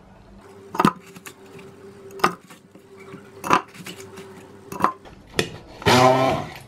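Sharp kitchen knocks, about five over several seconds, as a watermelon is cut up and its chunks go into plastic cups. Near the end, a blender motor starts with a short, loud burst.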